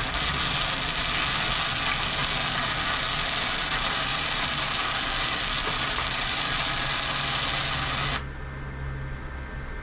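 Stick welder's arc crackling steadily as a weld bead is run, cutting off suddenly about eight seconds in and leaving a low hum.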